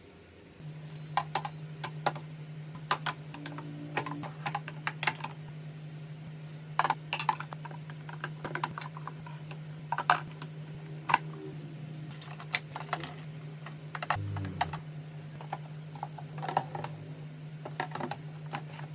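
Irregular light clicks, taps and knocks of plastic containers and items being handled and set down while a refrigerator is restocked, over a steady low hum that comes in just under a second in.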